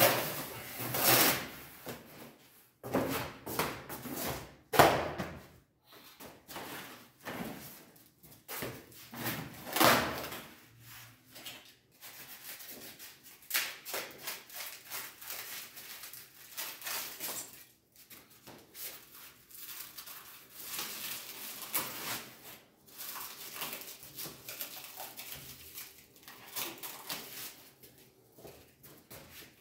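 Cardboard packaging being slit open with a utility knife and pulled apart, with sharp scrapes and tearing bursts in the first few seconds. Then a long stretch of plastic wrap crinkling and rustling as the wrapped door-frame parts are unpacked.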